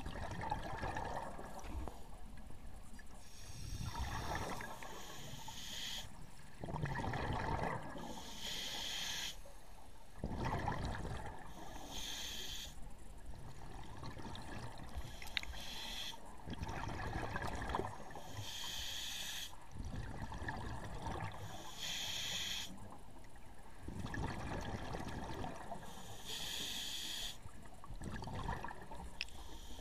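Scuba diver breathing through a regulator underwater: a hiss on each inhale alternating with the bubbling rumble of exhaled air, repeating about every four seconds.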